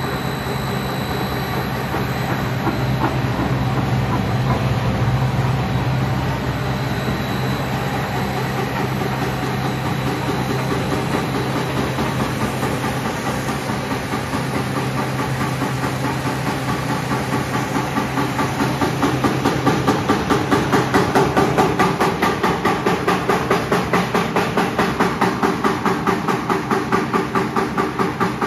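Twin-screw food extruder line running, a steady machine noise with a low motor hum. From about two-thirds of the way in, a regular chopping of about three strokes a second comes in, from the strand cutter cutting the extruded snack into sticks.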